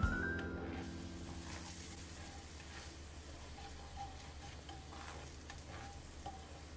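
Butter and oil sizzling in a stainless steel frying pan as chopped food is stirred with a nylon slotted spatula, with a few light scrapes of the spatula against the pan.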